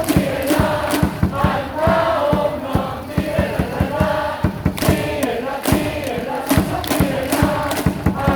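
Baseball stadium crowd chanting a cheer song in unison over music, with a fast, even beat of sharp strokes, about three a second, running under the voices.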